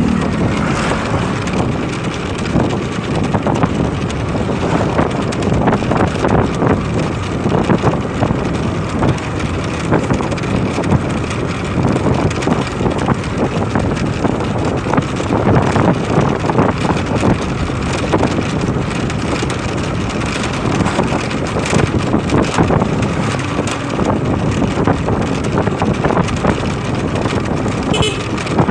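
Wind rushing over the microphone of a moving motorcycle, over steady engine and road noise.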